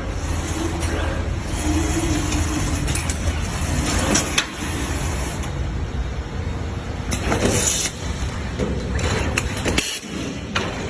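Automatic folding and packaging machine running, a steady mechanical hum broken by short hisses and clacks several times.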